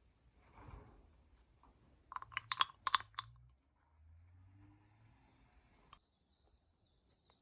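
A quick run of sharp clicks and taps lasting about a second, a couple of seconds in, typical of small utensils or containers being handled.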